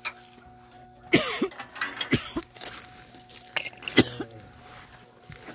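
A person coughing several times: sharp coughs about a second in, around two seconds in and around four seconds in, over a steady low hum.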